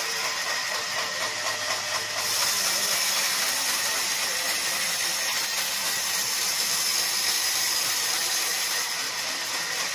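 Sawmill band saw running with a steady hissing whine as its blade cuts along a log.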